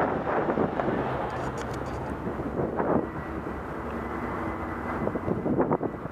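A steady engine drone under a rushing haze of wind on the microphone.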